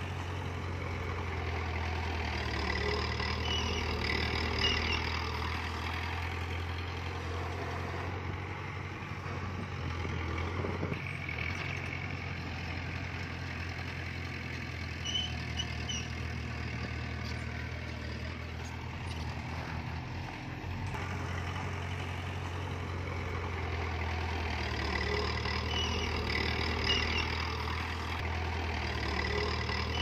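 Diesel engine of heavy earthmoving machinery running steadily with a low, even drone. A higher squeal comes and goes a few seconds in and again near the end.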